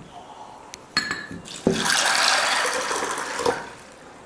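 Water pouring in a stream into a glass bowl of dry white chickpeas, filling it for soaking. The pour starts suddenly a little under two seconds in and fades out near the end.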